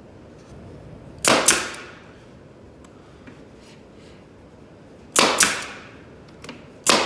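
Pneumatic brad nailer firing three times, driving brads into the glued pine side of a wooden jig. Each shot is a sharp double snap with a short tail of air; the second and third come close together near the end.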